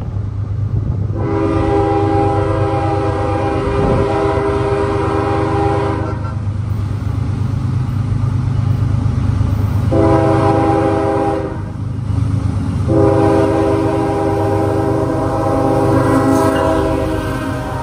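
Diesel freight locomotive's air horn sounding a grade-crossing warning as the train nears and passes: a long blast, a short one and a final long one, over a steady low rumble.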